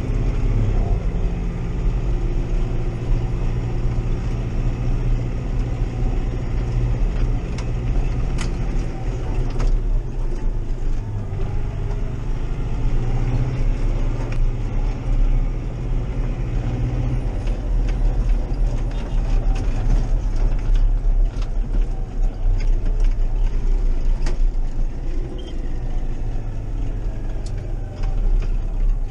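Massey Ferguson 5440 tractor's diesel engine running steadily as it drives, heard from inside the cab, with a few sharp ticks from the cab.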